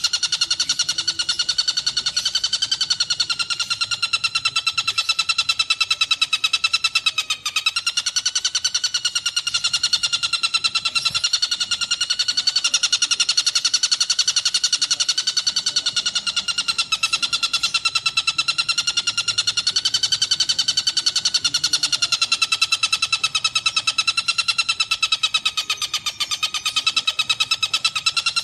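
A bird's continuous, very rapid buzzy trill, wavering gently up and down in pitch, with a brief break about seven seconds in.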